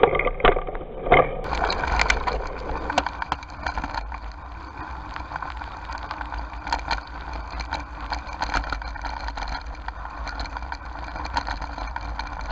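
Bicycle being ridden over a rough dirt trail: frequent irregular clicks and rattles over a steady low rumble.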